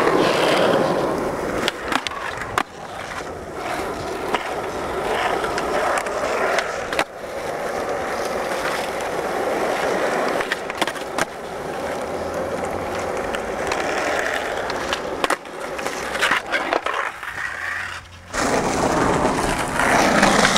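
Skateboard wheels rolling steadily over smooth concrete, with a few sharp clacks of the board along the way. The rolling breaks off briefly near the end, then starts again.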